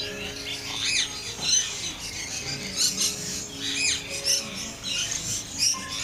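Birds chirping and calling repeatedly in short, high sweeping notes, over sustained low music notes.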